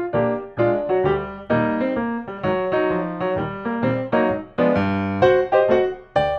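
Background music: a piano melody played as a series of struck notes, each ringing and fading.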